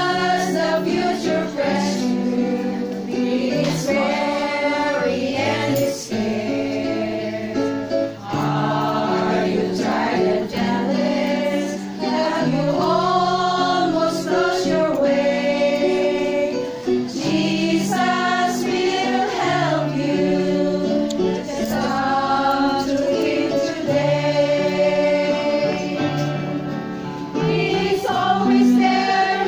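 A group of women singing a gospel hymn together as a small choir, over a steady accompaniment of electric guitar and keyboard that changes notes every second or two.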